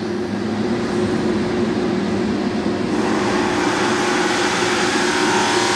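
Forced-draft burner of a powder-coating curing oven running steadily as the oven heats up. Its blower and flame make a continuous drone with a constant low tone.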